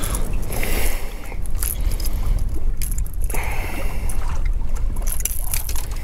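Steady low rumble of a fishing boat on the water, with scattered sharp clicks and rattles as pliers work a crankbait's hooks free from a crappie's mouth.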